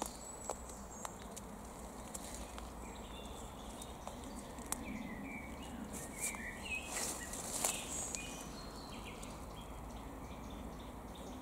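Woodland ambience: a few short bird chirps over a steady background hiss, with clicks and rustles of leaves being handled close to the microphone, mostly about seven seconds in.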